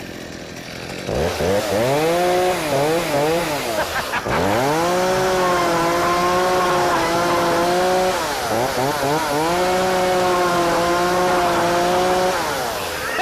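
Chainsaw revving hard: it climbs to full speed about a second in and holds a steady high pitch, with the pitch wavering up and down twice and dropping briefly around four seconds in. It cuts off near the end.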